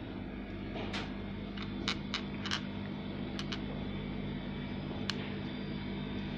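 Several short, light clicks and taps as fingertips handle a small pearl on a ridged plastic surface, over a steady low hum.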